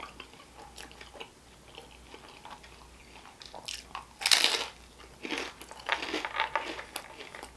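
A person biting into and chewing crisp pizza crust: faint small mouth clicks at first, a loud crunchy bite about four seconds in, then a few more crunching chews.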